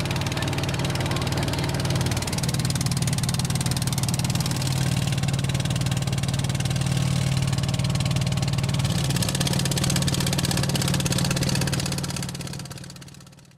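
River boat's engine running steadily, heard from on board as a constant low hum with a wash of noise over it; it fades out near the end.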